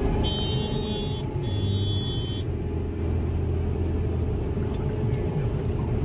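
Combine harvester running under way, heard from inside the cab: a steady engine drone with a constant whine. Early on, a high electronic buzz sounds twice in quick succession.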